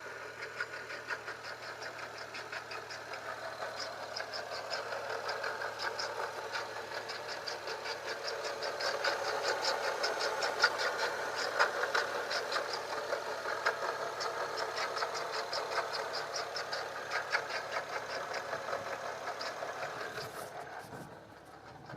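BMW 135i rattling: a fast, even run of light metallic ticks, several a second, over engine noise. It grows louder about halfway through and fades near the end.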